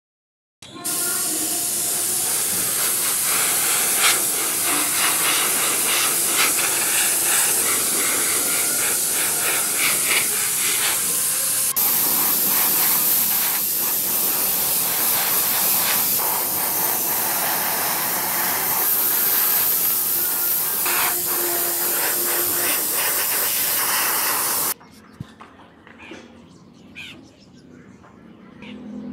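Compressed-air gravity-feed paint spray gun hissing steadily as it sprays paint onto a bicycle frame. It cuts off abruptly about 25 seconds in, leaving only faint sounds.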